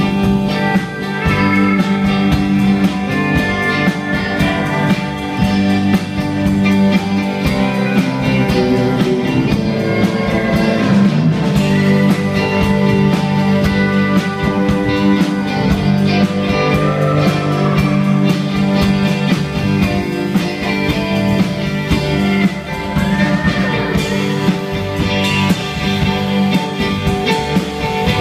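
Live band playing an instrumental passage on drum kit, electric bass, electric guitar and pedal steel guitar, with notes that slide about ten seconds in and again after twenty.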